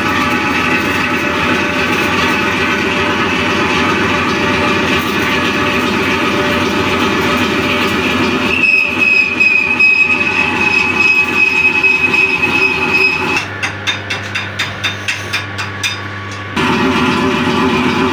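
Large metal-working lathe running while its cutting tool turns a long metal bar. Past the middle a steady high-pitched whine from the cut is heard for several seconds. Near the end the sound drops to a quieter steady hum that pulses about four times a second, and then the full running sound returns.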